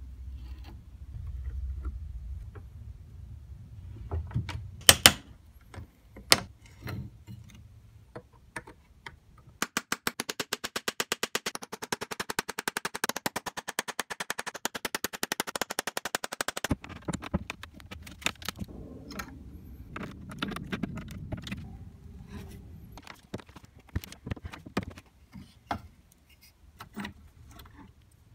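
Hand tools working old nails out of a wooden stool: scattered sharp metal clicks and knocks of nippers and a pry bar on nails and wood. Near the middle comes about seven seconds of fast, evenly spaced taps of a hammer on a nail punch set on a nail in the wooden seat.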